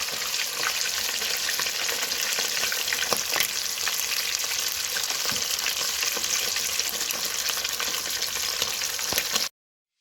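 Rabbit heads deep-frying in hot cooking oil: a steady sizzle with scattered crackles and pops, cutting off suddenly near the end.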